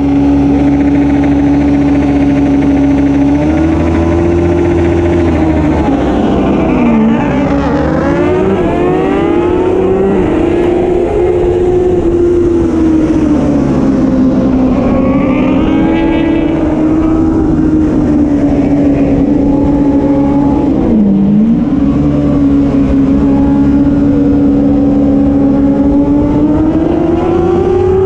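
Racing motorcycle engine running continuously at speed, its pitch swelling and sagging, with two brief sharp dips about seven and twenty-one seconds in, and climbing near the end.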